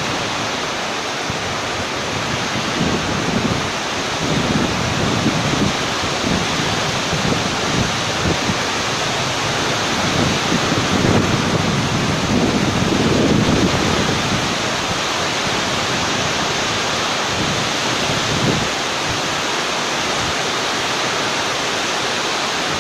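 Heavy rain pouring down in strong wind, a steady rush. Gusts buffet the microphone now and then, hardest around the middle.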